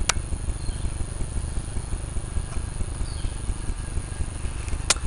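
Steady low rumbling background noise outdoors, with a sharp click just after the start and another near the end.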